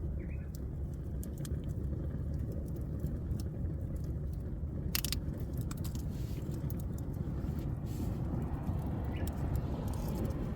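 Steady low outdoor rumble with scattered sharp clicks, the loudest a cluster about five seconds in, and two faint short chirps near the start and the end.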